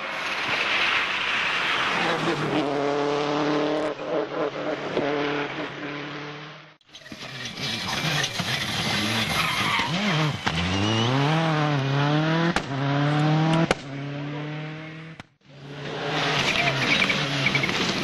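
Three World Rally Cars, turbocharged four-cylinder engines, in three separate cuts: each revs hard through a corner with the pitch dropping on the brakes and climbing again through the gears. The middle car, a Peugeot 206 WRC, lets out a couple of sharp cracks from the exhaust as it accelerates away.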